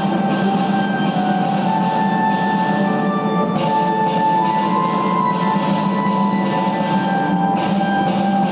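Music from a light and sound show, with long held notes and changing melody lines.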